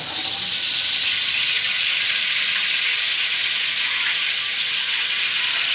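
Cooking oil pouring in a thick stream from a steel bucket into a large metal cooking pot: a steady, loud splashing hiss.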